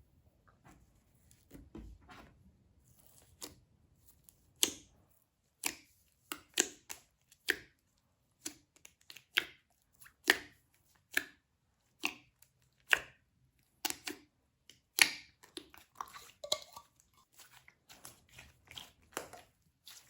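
Slime being worked by hand: sharp, wet clicks and pops from pressing, folding and stretching the slime, about one a second after a quiet start, with a longer crackly stretch near the end.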